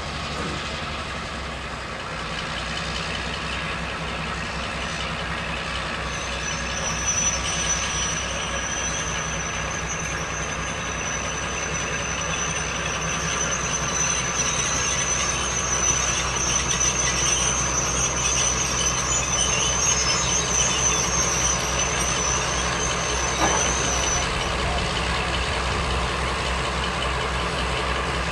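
Class 52 Western diesel-hydraulic locomotive's twin Maybach engines running steadily at low revs. A high steady whine joins about six seconds in and stops a few seconds before the end.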